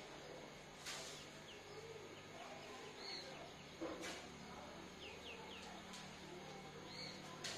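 Chalk writing on a blackboard: three sharp taps and faint scratching, with short high squeaks. A high chirp recurs about every four seconds.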